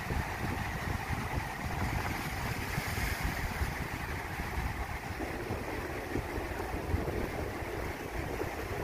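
Ocean surf breaking over a lava-rock reef and washing through the rocky shallows, a steady rush of white water that swells a little about three seconds in, with wind buffeting the microphone as a low uneven rumble.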